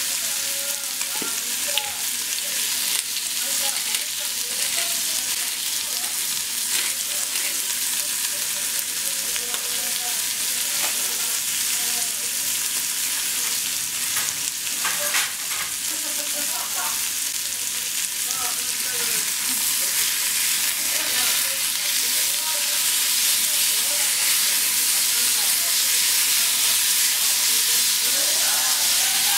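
Thinly sliced beef sizzling in a small pan over a gas flame: a steady frying hiss that grows louder over the last several seconds, with a wooden spatula stirring the meat near the end.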